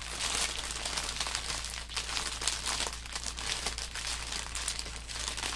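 Thin plastic drill bags crinkling and crackling as they are folded and stuffed into a tight plastic baggie, a dense run of small crackles throughout.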